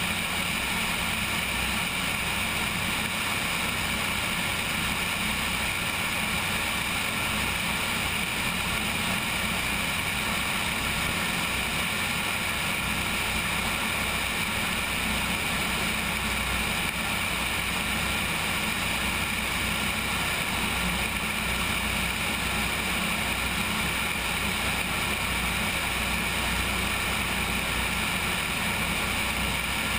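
Cessna 172 in flight heard from a camera mounted on its wing: the steady drone of the piston engine and propeller mixed with wind rushing past the camera, unchanging throughout.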